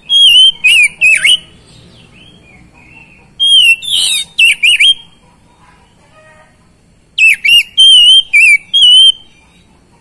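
Oriental magpie-robin singing loud, clear whistled phrases with quick up-and-down twists in pitch. It sings in three bursts of a second or two, with short pauses between them.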